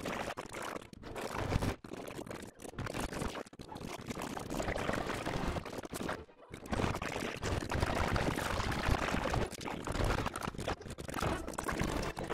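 Rapidly edited animated-film soundtrack: a dense, noisy mix of sound effects, chopped off abruptly several times in the first few seconds and once more, for longer, about six seconds in.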